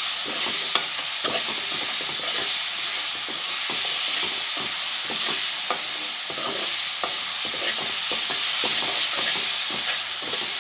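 Onions, ginger-garlic paste and ground spices frying in oil in a pan with a steady sizzle, while a spoon stirs and scrapes the pan in many small clicks. This is the masala being lightly fried (bhuna) for a chicken stuffing.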